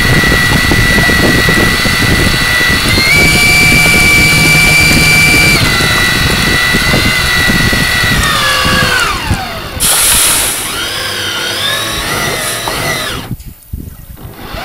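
Electric drive motor of a radio-controlled model fireboat whining under way. Its pitch steps up about three seconds in and eases back, falls steeply around eight to ten seconds in as the throttle comes off, wavers, and cuts out briefly near the end.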